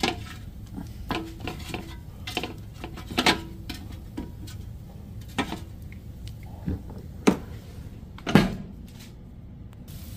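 Silicone-tipped kitchen tongs clacking and knocking against a nonstick air fryer basket while breaded chicken pieces are flipped: a dozen or so irregular clicks and clunks, the loudest about eight seconds in.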